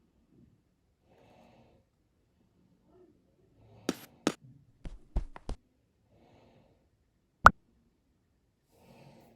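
Faint breathing close to the microphone, a puff every two to three seconds, with a quick run of clicks and knocks about four seconds in and one sharp, loud click a few seconds later, from the tablet and its packaging being handled.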